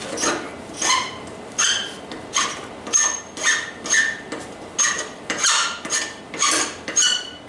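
Hand file scraping across a forged steel link held in a vise, filing down a nub in steady back-and-forth strokes of about two a second. Each stroke makes the steel ring with a few high tones.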